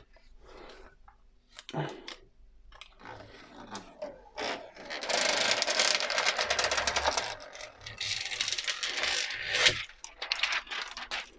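Packaging being handled as a laptop-style lapdock is unwrapped: a few light knocks and clicks, then several seconds of loud crinkly rustling and scraping from about four seconds in until near the end.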